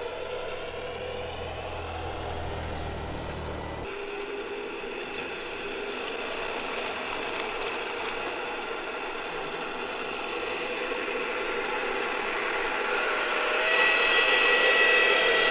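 G-scale model trains running on garden track: small electric drive motors and gearboxes whining with a steady mechanical rattle of wheels on rails. It gets louder near the end as a small red model diesel locomotive hauling log wagons passes close by.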